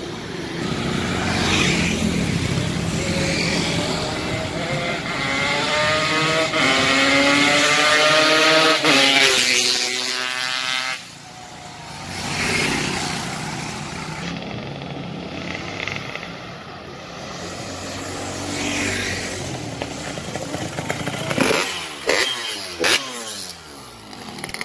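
Yamaha RX-King single-cylinder two-stroke motorcycle accelerating hard, its engine pitch climbing through the gears, then breaking off suddenly about eleven seconds in. It is on its test run after a tune-up with a new cylinder block, head and ignition. Near the end the engine is heard again, revving up and down.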